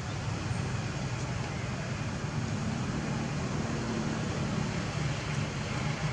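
Steady low rumble and hiss of outdoor background noise, even in level throughout.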